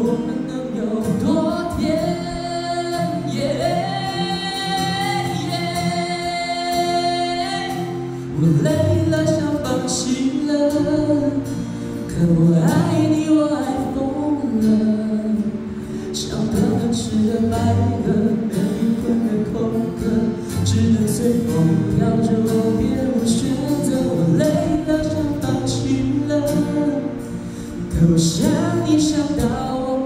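A voice singing a slow Mandarin pop ballad over acoustic guitar, with long held notes, performed live.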